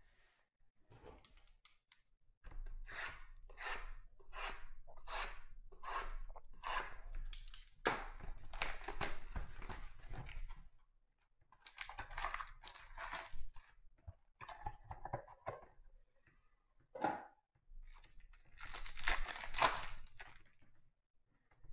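Trading card box wrapping and a foil card pack being torn open by hand: crinkling, tearing plastic. It starts with a run of about eight even scratching strokes, then longer stretches of tearing and one dull knock. The loudest rip comes near the end as the foil pack is torn open.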